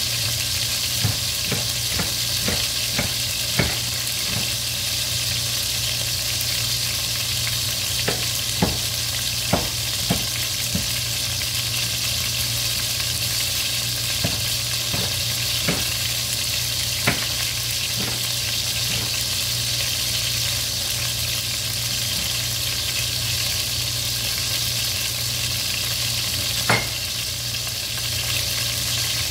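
Chicken pieces frying in oil in a stainless steel stockpot: a steady sizzle with occasional sharp clicks, the loudest near the end.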